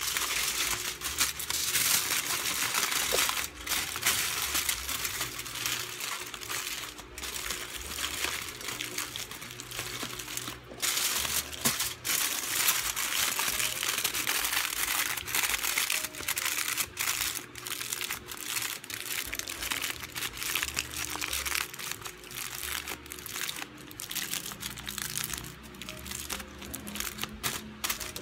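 Aluminium foil being crumpled and folded by hand, a continuous irregular crinkling and crackling as the edges are pressed and crimped shut.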